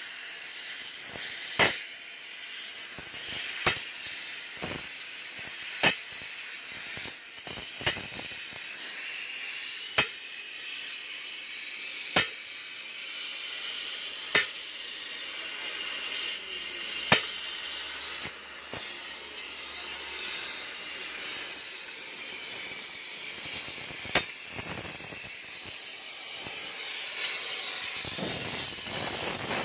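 Oxy-fuel cutting torch hissing steadily as it cuts through the steel links of a Komatsu PC60 excavator track chain. Sharp metallic knocks come about every two seconds.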